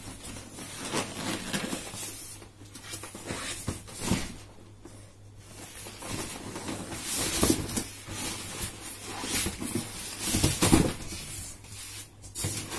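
Polystyrene foam packing being lifted out of a cardboard carton: irregular rubbing, scraping and knocking of foam against cardboard as it is handled, louder twice in the second half.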